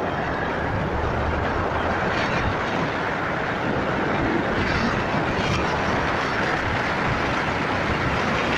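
Steady rush of wind and road noise recorded from a moving vehicle travelling along a road.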